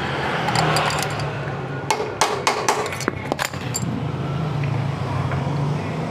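Several sharp metal taps, about six in quick succession a couple of seconds in, from a small hammer tapping the metal parts of a scooter's kick-starter assembly. A steady low engine hum runs underneath.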